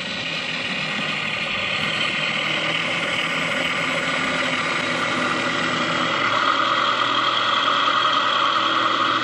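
An RC model plane's engine sound idling steadily, growing louder toward the end.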